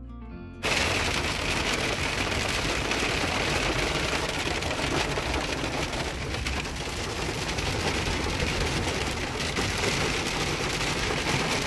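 Hail and heavy rain clattering on the car's roof and windshield, a dense, steady patter of hits heard from inside the cabin. Under a second in, plucked harp-like music cuts off as the storm noise comes in abruptly.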